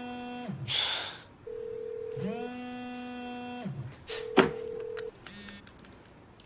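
A smartphone ringing with an incoming call: a ringtone of long, steady held tones, in two phrases of about two seconds each and a shorter third one. There is a short swish about a second in and a sharp click about four and a half seconds in.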